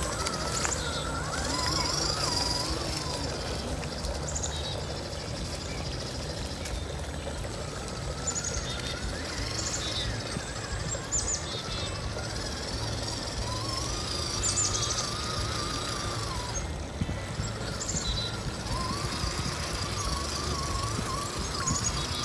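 The electric motor and gears of a Redcat Gen8 RC crawler truck whining, the pitch rising and falling with the throttle as it drives through a shallow stream, over the steady sound of running water.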